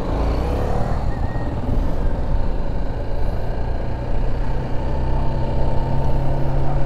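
BMW G310 GS's single-cylinder engine pulling hard under throttle from the rider's seat, with wind rushing over the microphone. After about four seconds the engine note settles to a steady cruising pitch.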